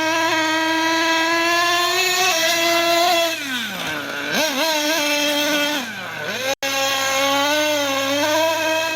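A motor running with a steady, high-pitched whine; its pitch sags twice, about three and a half seconds in and again around six seconds, then picks back up.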